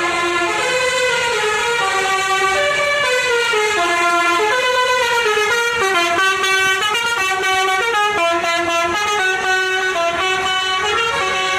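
Bus telolet basuri horn playing a tune: a continuous run of held horn notes, stepping up and down in pitch about every half second.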